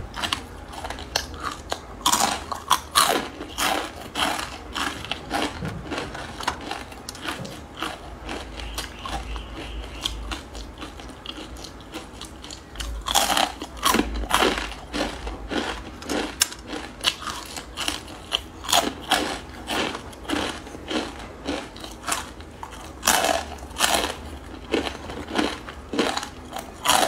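Loud, close-up crunching and chewing of crisp, seasoned fried instant-noodle pieces: runs of sharp crunches with short pauses between bites.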